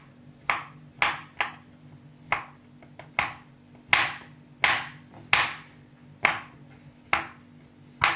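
Kitchen knife chopping a milk chocolate bar on a wooden cutting board: sharp knocks of the blade hitting the board, roughly one every three-quarters of a second, some louder than others.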